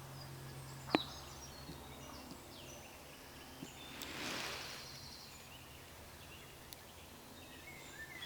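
Woodland birds singing faintly, scattered short high whistled phrases, over a steady low background hum. A single sharp click comes about a second in, and a brief rustling swell around four seconds.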